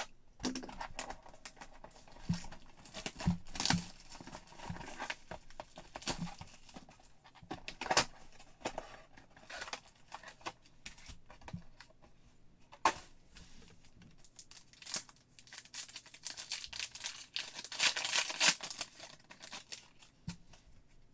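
Packs of 2022 Clearly Donruss football cards being torn open by hand, their wrappers crinkling, with the cards clicking and sliding against each other as they are handled: an uneven run of short rips, crackles and clicks.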